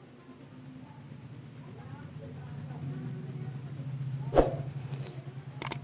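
A cricket chirping in a fast, even, high trill that pauses briefly a little past three seconds in, over a low steady hum. A single knock sounds about four and a half seconds in.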